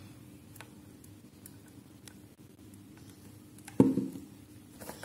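Quiet room tone with a few faint clicks, then a single dull knock on the tabletop about four seconds in.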